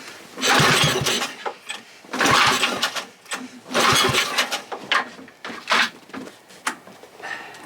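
Small four-stroke single-cylinder Tecumseh H35 engine being pull-started: three hard pulls on the recoil starter about a second and a half apart, the engine cranking without settling into a steady run.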